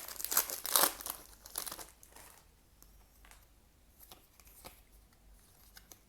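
Trading-card booster pack wrapper crinkling and tearing open, loudest in the first two seconds, then a few faint clicks as the cards are handled.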